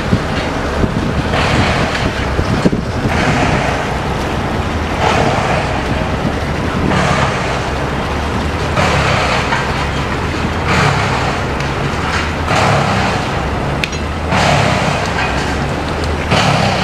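A passenger river boat's engine runs steadily as the boat cruises. A hissing swish swells and fades about every two seconds over the hum.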